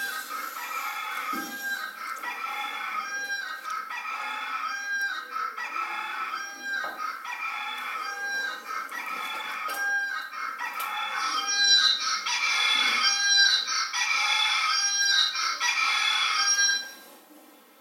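Rooster crowing and hens clucking in an even loop that repeats about once a second, as from a phone alarm tone. It gets louder partway through and cuts off suddenly near the end.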